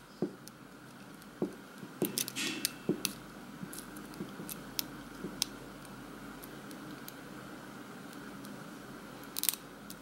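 Small metal clicks and scrapes of a hook pick working the pins of a CoBolt 50mm padlock under tension. The clicks are scattered, thickest in the first half, with a short cluster near the end.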